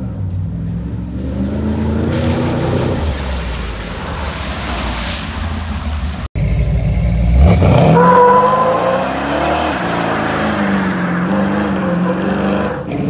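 A lifted 1970s Ford F-series pickup's engine pulling through mud, with a hissing splash of water and mud about halfway through. After a sudden cut, a lifted Chevrolet pickup's engine revs up and its tires squeal steadily in a smoky burnout.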